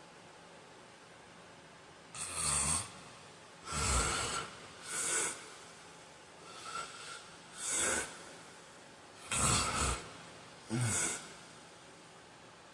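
A sleeping man snoring and snorting: a quick run of about seven short, harsh breaths, roughly one a second, starting about two seconds in over a faint steady hiss.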